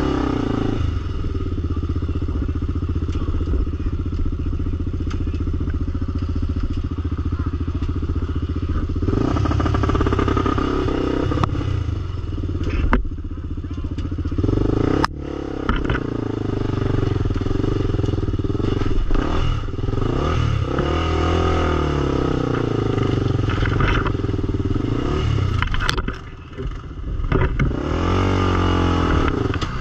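Single-cylinder four-stroke sport ATV engine running steadily at first, then revved up and down again and again. A few sharp knocks are heard along the way.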